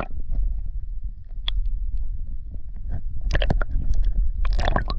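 Muffled rumble and sloshing of lake water on a camera microphone held underwater, with two louder splashes about three and a half and four and a half seconds in.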